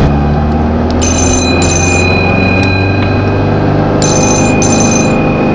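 Mobile phone ringing in a bell-like double-ring pattern, two rings twice, over the steady low drone of a Volkswagen camper van's engine running.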